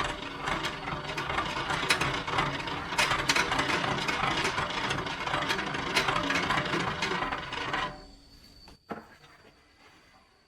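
Circular saw blade cutting into wood: a rough, rasping, grinding noise with scattered ticks, which stops about eight seconds in. A single knock follows about a second later.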